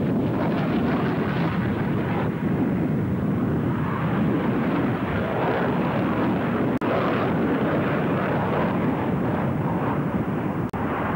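Twin-engine jet fighter flying a display, its engines giving a loud steady roar, broken by two very short dropouts near the middle and end.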